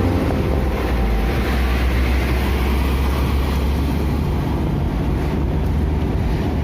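Steady low rumble and noise of a moving vehicle.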